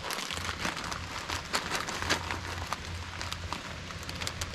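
Rain falling, with irregular drops ticking sharply on nearby surfaces over a soft hiss, and a steady low hum underneath.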